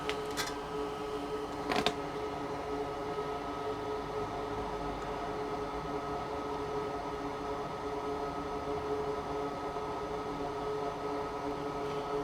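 Small electric fan running steadily, a humming drone with a few fixed tones, ventilating plastic-welding fumes. Two short clicks about half a second and two seconds in.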